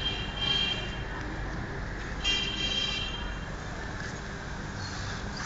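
Gloved punches on a heavy punching bag, with one sharp hit right at the end. Before it come two short high-pitched squeaks, about half a second and two seconds in.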